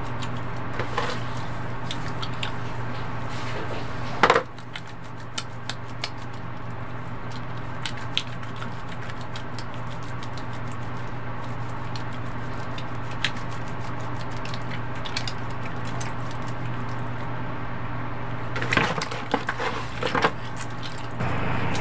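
Wet hands rubbing and lathering a bar of soap over a basin of water: soft wet squishing and crackling with scattered small clicks, over a steady low hum. A louder knock about four seconds in, and a busier patch of clicks and rubbing near the end.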